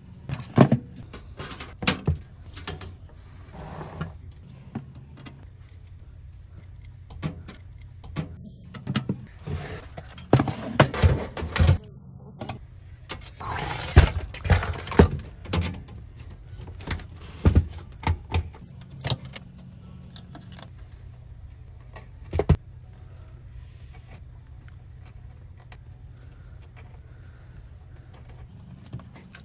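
Handling noises of computer parts being fitted: scattered sharp clicks and knocks with bouts of rustling, busiest in the middle, over a steady low hum.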